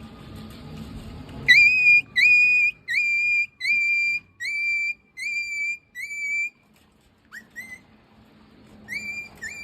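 Whistle calls to lure a dog out: a run of seven high notes, each swooping up and then held, about one and a half a second. After a short gap come two quick chirps, and the notes start again near the end.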